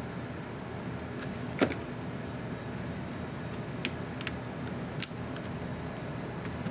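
Short sharp plastic clicks from a laptop key being worked by hand as its keycap goes back on: four clicks, the loudest about a second and a half in, over a steady low hum.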